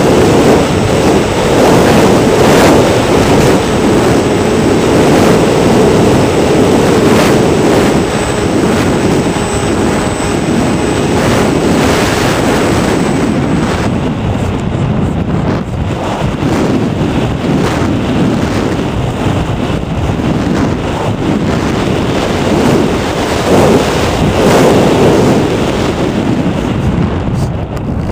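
Wind buffeting the onboard camera microphone of a Hawk Sky RC model airplane in flight, over the drone of its electric motor and propeller. A faint high whine stops about halfway through, and the sound grows duller after that.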